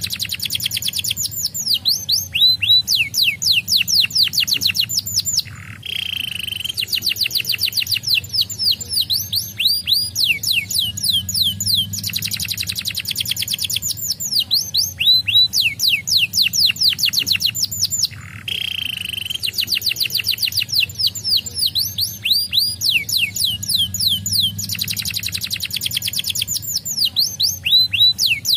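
Domestic canary singing: long, fast trills of rapidly repeated notes, broken by short pauses, with the same song phrases recurring about every twelve seconds.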